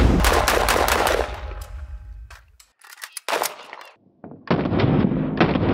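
Rapid rifle fire from a Zbroyar Z-15, a 5.56 mm AR-15-pattern rifle. A fast string of shots tapers off about a second in, a single shot comes near the middle, and another quick string of shots starts near the end.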